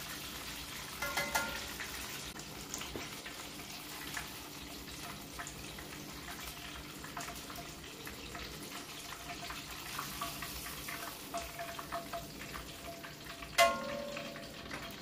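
Breadcrumbed chicken pieces deep-frying in hot oil: a steady sizzle with constant small crackles. A light knock about a second in and a sharper, louder one near the end.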